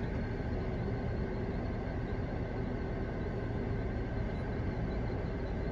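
Steady vehicle engine rumble heard from inside a car's cabin, with a faint, even hum running through it.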